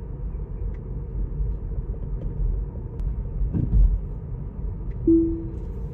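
Low, steady road and tyre rumble inside an electric car's cabin at about 35 mph, swelling briefly near the middle. A short steady tone sounds a little after five seconds in.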